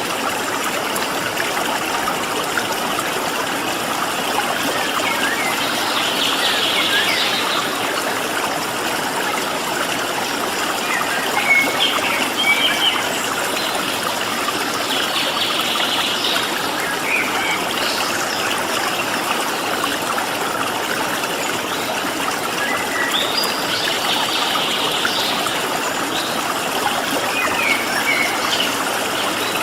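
Steady rush of flowing water, with small songbirds calling over it: a high buzzy trill three times, about every nine seconds, and scattered short chirps in between.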